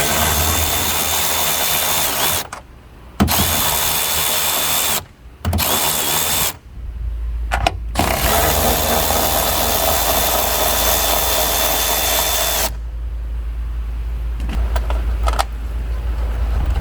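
Cordless drill turning a 10 mm socket to back off the tail lamp's mounting nuts. It runs in four bursts of steady whine with short pauses between them, and the last burst is the longest, about four seconds.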